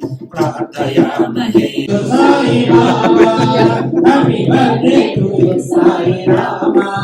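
Music with singing voices; the voices blend like a group or choir.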